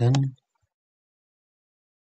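A man's spoken word ending in the first moment, then near silence.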